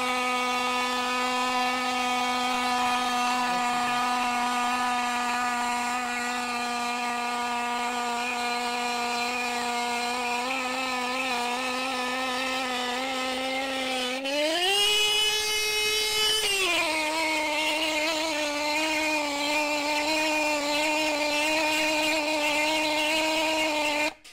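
Electric motorcycle disc horn sounding continuously while submerged in a tank of water, one steady blaring tone. About fourteen seconds in, its pitch jumps sharply higher for about two seconds, then settles a little above where it began, and it cuts off abruptly at the end.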